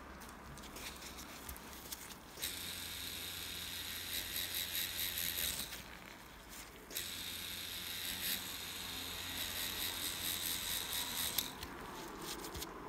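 Tattoo machine buzzing as it colours skin, running in two stretches of a few seconds each with a short pause between.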